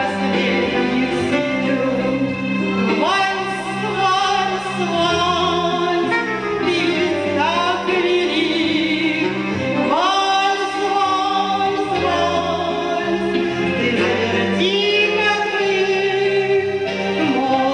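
A woman singing a slow Russian waltz song over instrumental accompaniment, holding long notes with vibrato above steady sustained bass notes.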